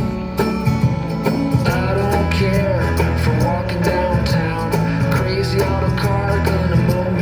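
Background music: a rock song with guitar over a steady beat, in a stretch between sung lines.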